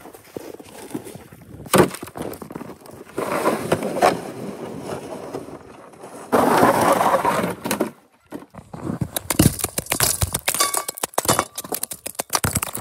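Chunks of clear ice being handled: knocks and scrapes, then a dense run of sharp clinks and cracks through the last few seconds as broken ice pieces tumble against each other.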